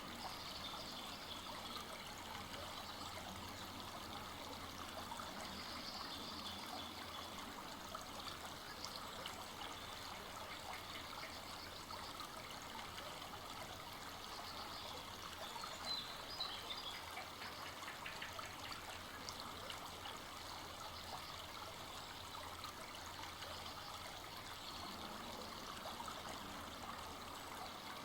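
A full-flowing forest stream running steadily, an even rush of water with a trickling, splashing texture.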